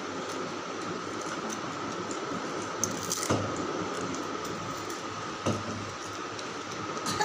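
Steady mechanical room hum with a faint high whine, broken by a few light clicks and knocks around three seconds in, again about five and a half seconds in, and near the end.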